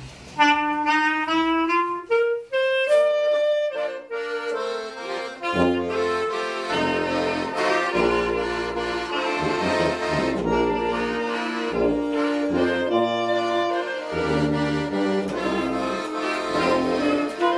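A small band of tuba, accordion, clarinet and saxophone playing a Congregação Cristã no Brasil hymn. A single melody line opens, then the full group comes in about five seconds in, with the tuba on the bass line.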